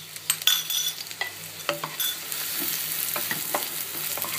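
Chopped onions sizzling in hot oil in a nonstick pan, with a wooden spatula stirring them and clicking against the pan now and then. The sizzle grows steadier and fuller about two seconds in.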